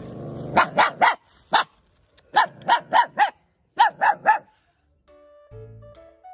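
Tan puppy growling briefly, then barking: about eleven sharp, high barks in three quick runs, in a warning display over its territory. Soft music comes in near the end.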